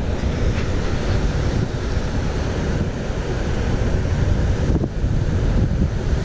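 Wind buffeting the microphone: a steady, fairly loud low rumble.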